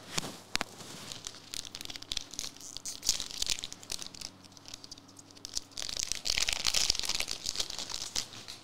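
A One Piece Card Game booster pack being torn open, its wrapper crinkling, with many small crackles throughout. The loudest rustling and tearing comes in the last few seconds.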